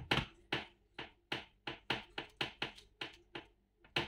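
A fork tapping repeatedly, about three times a second, as its tines prick a thin round of dough on a paper-lined metal baking tray. This is docking the dough so that it doesn't puff up in the oven.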